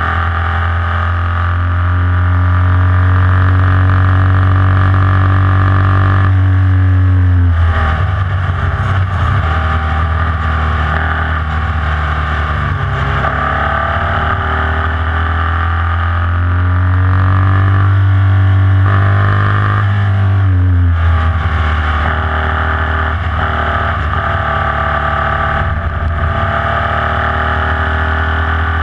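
Formula Vee race car's air-cooled Volkswagen flat-four engine running hard at racing speed, with wind noise in the open cockpit. The revs fall off sharply about seven seconds in and again about twenty seconds in, then build back up through the gears.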